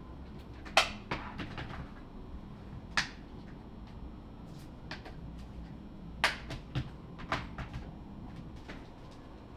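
Irregular knocks and clicks of small items and packaging being handled and set down while orders are packed. The sharpest comes about a second in, another at about three seconds, and a quick cluster falls a little past the middle.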